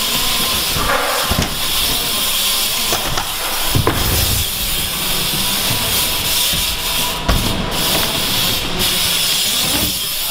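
BMX bikes rolling over wooden skatepark ramps: a steady rushing hiss of tyres and moving air, broken by a few sharp knocks.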